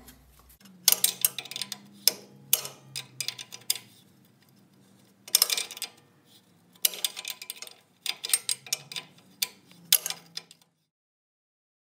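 Small open-end wrench working a loosened steel brake-line fitting off a Willys CJ2A front brake: repeated bursts of small metal clicks and ticks as the wrench is repositioned on the nut. The sound cuts off suddenly near the end.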